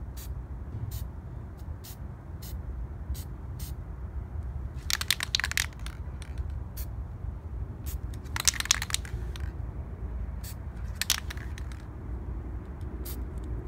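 Aerosol spray paint can hissing in three short bursts a few seconds apart.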